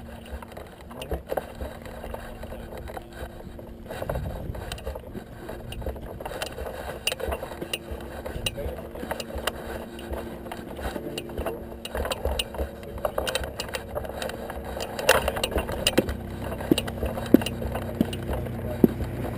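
Hang glider's frame and rigging clicking and rattling, heard from a camera mounted on the keel, as the glider is carried at a walk, with footsteps on gravel and faint voices. A low wind rumble builds near the end.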